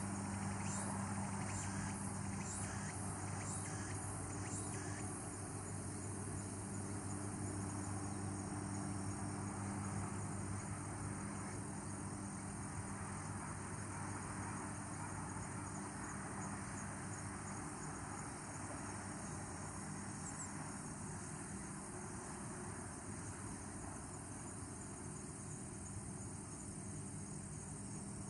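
Outdoor evening ambience of insects trilling steadily over a steady low hum, with a few short chirps in the first few seconds.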